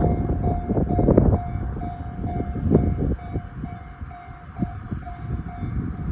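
Japanese railway level-crossing warning bell ringing in quick repeated dings, about three a second, over the low rumble and buffeting of a passing train and wind on the microphone. The bell falls silent near the end.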